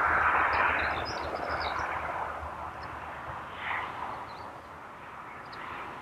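A broad rushing noise that fades away over a few seconds, with small birds chirping now and then above it.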